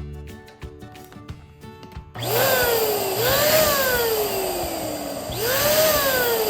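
Electric balloon inflator blowing air into a balloon: a loud rush of air with a motor whine that jumps up in pitch as it starts and then sinks slowly as the balloon fills, started three times. Background music with a beat is heard before the first start.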